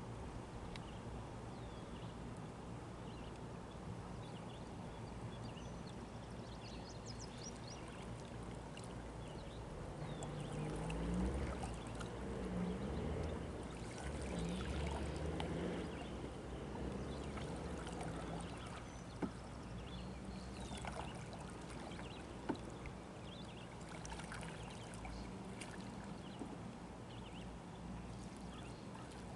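Otter tail canoe paddle dipping and pulling through calm water: soft splashes and trickling drips from the blade. A louder stretch with a low wavering hum comes near the middle.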